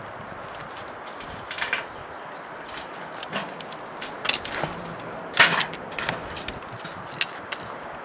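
Footsteps on a metal grating footbridge: irregular clanks and knocks, roughly one every half second to second, as a mountain biker walks across with his bike on his shoulder. A steady hiss runs underneath.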